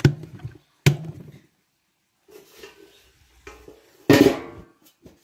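Bee smoker's metal can and lid clanking and rattling as it is handled: two sharp knocks in the first second, then quieter rattling and a louder clatter about four seconds in.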